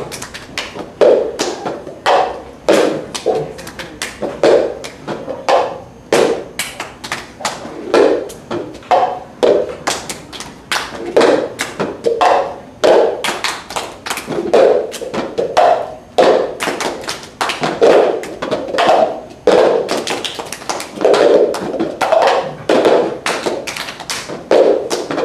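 Plastic cups being clapped, tapped and slapped down on the floor by several players at once in the cups game: a steady, repeating rhythm of hand claps and hollow cup knocks.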